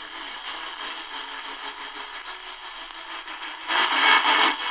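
AM radio static and hiss from the Tecsun DR-920C's small speaker, tuned to the medium-wave band near 630 kHz, with a weak station faint under the noise. The sound grows louder for about a second near the end.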